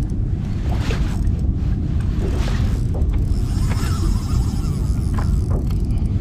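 Fishing reel drag clicking and buzzing as line is pulled off, over a steady low rumble.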